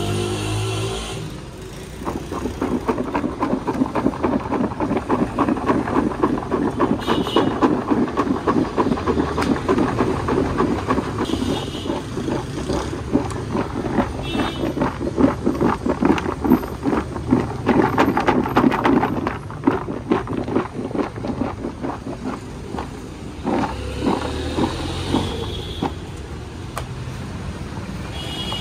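A motor-vehicle engine running close by with a rapid pulsing chug, louder through the first two-thirds and then easing off, amid road traffic. A few short, high tones sound over it.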